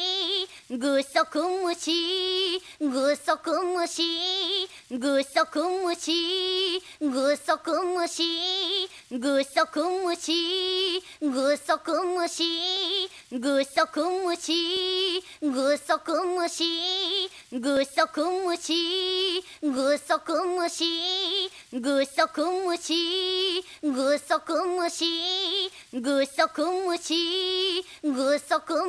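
A girl's voice singing the short chant 'gusoku mushi, gusoku mushi' (giant isopod) over and over, the same sung phrase repeating about every two seconds as a loop.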